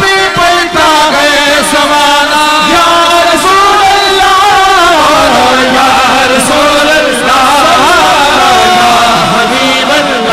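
A man singing a naat in long, drawn-out notes that waver and bend, with no break.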